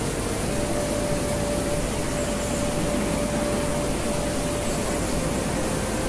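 Small forest waterfall and stream rushing over rocks close by: a steady, even rush of water with no break.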